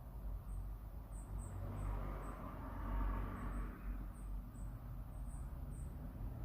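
Steady low outdoor rumble with a road vehicle passing, swelling and fading away in the middle, and faint short high ticks scattered throughout.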